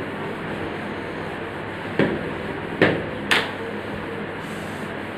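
Three dull knocks about two to three and a half seconds in, the middle one the loudest, as a person shifts onto his knees on a thin mat over a tiled floor, over a steady background hiss.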